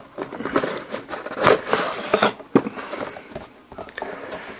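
Cardboard packaging being handled: an inner box slid out of a cardboard carton, with irregular scraping and rustling and a few sharp knocks.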